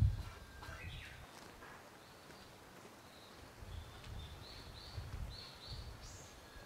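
A small bird chirping: a brief rising call near the start, then a run of short high chirps in the second half, over faint outdoor ambience with a few soft low thumps.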